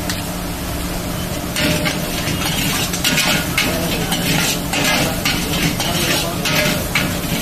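Chicken fried rice sizzling in a large steel wok as a metal ladle stirs and scrapes it, with repeated quick scraping strokes from about a second and a half in.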